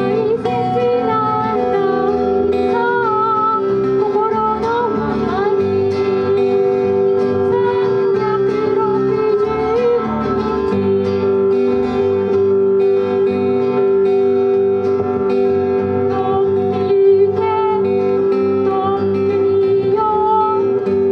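Small live band playing a pop song: strummed acoustic guitars over an electric bass, with a wavering melody line on top.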